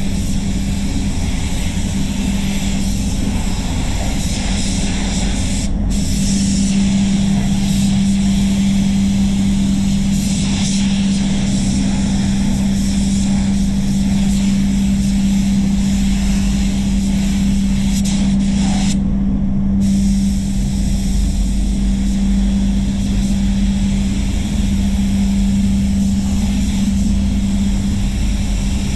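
Spray booth running with a steady hum, over which a handheld spray gun hisses as the painter sprays the panels. The hiss breaks off briefly twice, about six seconds in and near the middle, as the trigger is released between passes.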